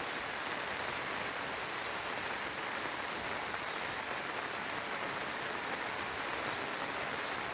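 Steady rain falling on crops and vegetation, an even hiss of many drops.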